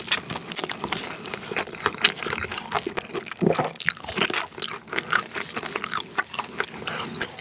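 Close-up crunching and chewing of crispy Korean fried chicken: the fried batter crackles densely as it is bitten and chewed, with one heavier crunch about three and a half seconds in.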